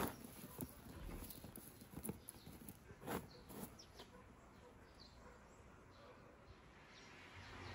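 Dried green tea leaves rustling and crackling faintly under a hand spreading them over a sheet of paper. A handful of crisp ticks come in the first few seconds, then it goes quieter.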